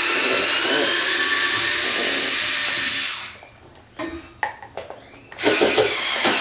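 Electric drill/screwdriver whining steadily as it backs out the screws holding a wall-mounted table to its brackets. It stops about three seconds in, a few knocks follow, and it starts again for a second run near the end.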